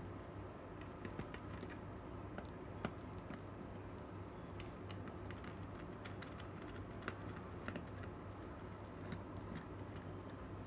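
Scattered light clicks and taps at an irregular pace over a steady low hum.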